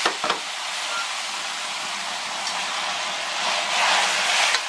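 Green peppers sizzling in a hot wok in a little sauce as aged vinegar is drizzled over them, with a couple of sharp clinks of the ladle against the wok at the start. The sizzle swells near the end as a metal spatula stirs the peppers.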